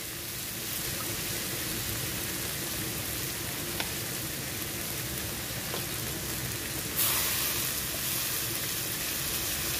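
Sliced shallots, garlic, ginger and chilies sizzling in hot oil in a wok, a steady frying hiss. About seven seconds in the sizzle turns suddenly louder and brighter as vinegar is dripped into the hot pan.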